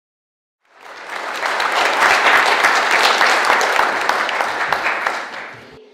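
Audience applauding. It starts about half a second in, swells over the next second, and dies away near the end.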